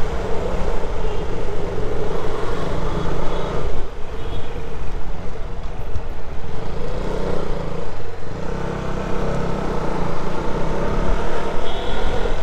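Wind noise on a helmet-mounted Rode VideoMicro microphone while riding a motorcycle, over the steady running of the bike's engine. The wind eases briefly about four and eight seconds in.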